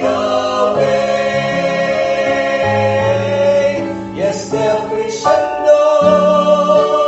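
Vocal quartet singing a gospel song in harmony, the voices holding long chords that change every second or two.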